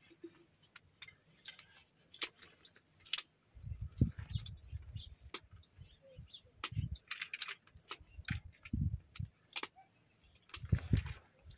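A spoon clinking against a small bowl in quick, irregular taps, with a few low muffled thumps now and then.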